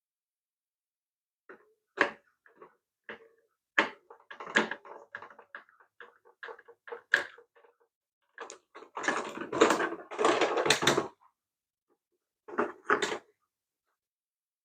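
Sharp clicks and knocks of plastic toy-car parts being handled and fitted together, with a longer stretch of scraping and rattling about two-thirds through.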